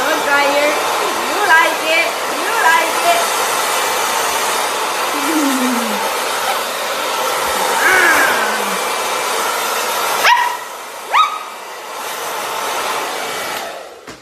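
Hair dryer blowing steadily while a puppy barks in short calls over it. About ten seconds in the blowing drops away, two sharp clicks follow, and a quieter steady noise remains.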